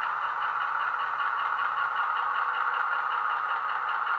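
DCC sound decoder in a Heljan OO gauge Class 35 Hymek model playing a Legomanbiffo recording of the Hymek's diesel engine running, through a small 26x14x7 bass-enhanced speaker. The engine sound carries a rapid, even beat, and a low hum beneath it stops near the end.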